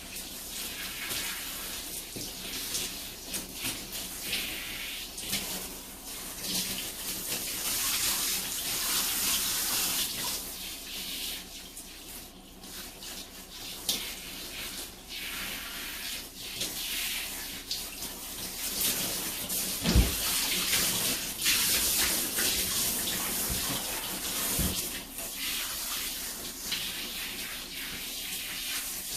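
Running water splashing unevenly and steadily, with a dull thump about twenty seconds in and a smaller one a few seconds later.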